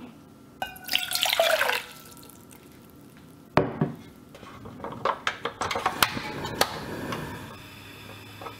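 Tapioca pearls and liquid poured from a glass measuring cup into a metal saucepan, splashing loudly for about a second, followed by a sharp knock and a run of clinks and knocks against the pan. A steady low hiss from the lit gas burner fills the last couple of seconds.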